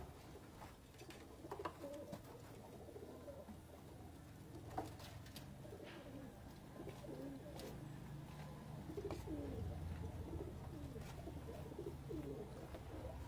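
Domestic pigeons cooing, softly at first and more steadily in the second half, with a few faint clicks.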